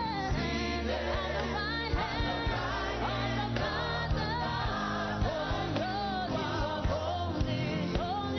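Church worship song: a singing voice over a band with sustained bass notes and occasional drum hits.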